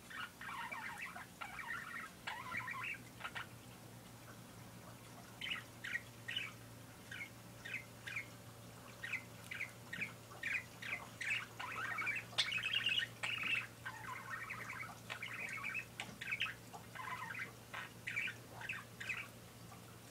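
Pet parakeet chattering: runs of warbling mixed with strings of short, sharp chirps, with a brief pause after the first burst.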